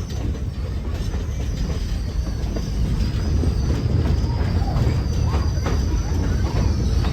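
Railroad passenger cars rolling along the track: a steady low rumble of steel wheels on rail with light clicks, and a thin high wheel squeal that comes in as the sound grows louder about three seconds in.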